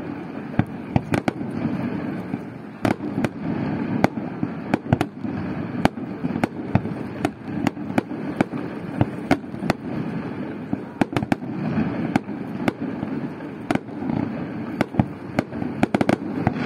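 Fireworks display: aerial shells bursting in a rapid, irregular barrage of sharp bangs, several a second, over a continuous low rumble.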